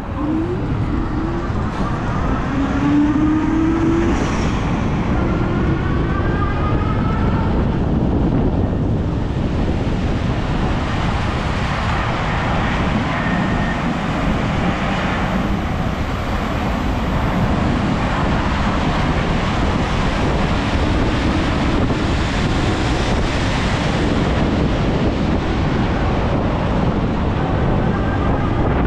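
Steady road and wind noise from a moving electric bike in city car traffic, with a rising whine a few seconds in.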